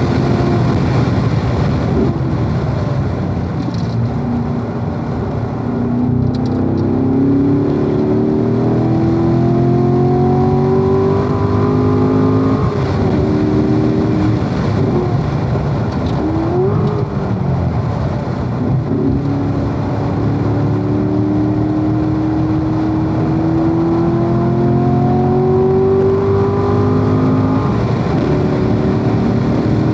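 Corvette V8 engine at full throttle on a race track, its pitch climbing steadily for several seconds at a time as the car accelerates. Twice it drops off suddenly, with a short rise and fall in between, as the driver lifts and brakes for corners.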